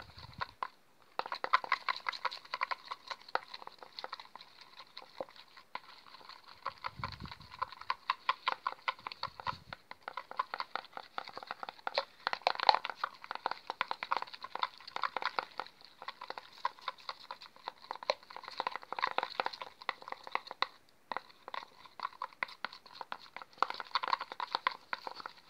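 A thin stick stirring clear slime glue and blue colouring in a plastic bowl, clicking and scraping against the bowl in quick runs of ticks, with a couple of dull low bumps a few seconds in.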